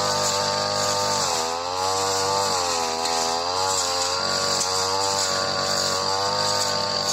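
Supra SPR328 two-stroke brush cutter running at high revs, its engine pitch dipping and recovering again and again as the blade bogs in tall, dense grass.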